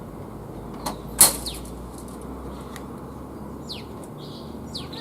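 Two sharp knocks about a second in, the second louder, from the pipe and tools being handled, over a steady low hum; a couple of short falling bird chirps near the end.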